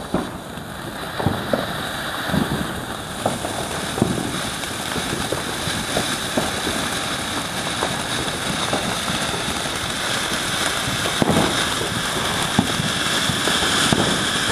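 Ground fountain firework spraying sparks: a steady hiss with scattered crackling pops, growing gradually louder.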